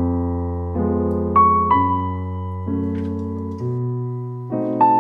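Background piano music: slow, gentle chords, a new chord struck about every second and left to fade.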